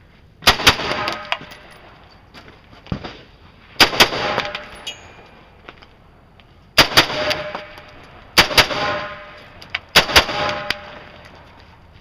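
Rifle shots fired in quick pairs: five double taps spread through the stretch, each pair about a fifth of a second apart and followed by a short echo, with a few fainter single cracks between.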